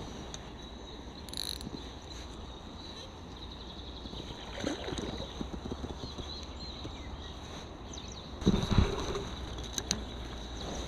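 Handling noise of a spinning rod and reel held in a gloved hand: scattered knocks and rustles over a steady low rumble, with one loud knock about eight and a half seconds in.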